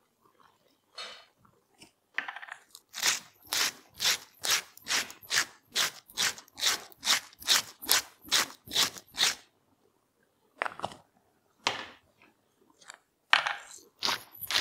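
Hand-turned salt mill grinding: a run of crunching strokes about three a second, a pause with two single turns, then the grinding starts again near the end.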